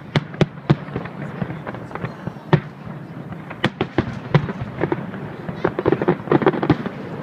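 Fireworks bursting: a rapid, irregular series of sharp bangs and crackling reports, coming thickest in a quick cluster near the end.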